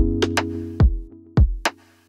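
Background music: an electronic drum-machine beat of sharp kicks over held synth chords.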